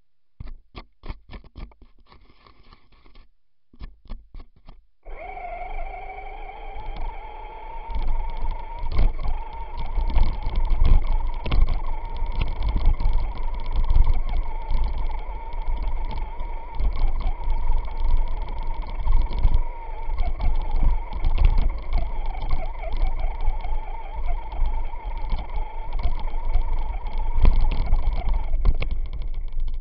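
Onboard sound of a Traxxas Stampede RC truck driving through snow. A few sharp knocks come in the first five seconds. Then the electric motor and gears start a steady whine that rises in pitch as the truck speeds up, over heavy low rumbling from the truck jolting across the snow.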